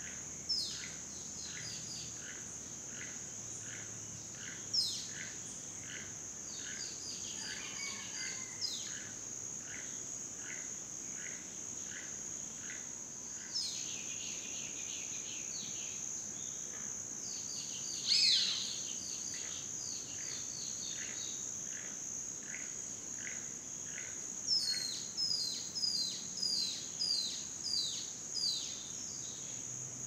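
Rainforest night chorus: a steady high-pitched insect trill, over which short downward-sliding chirps repeat about twice a second. The chirps are densest and loudest near the end.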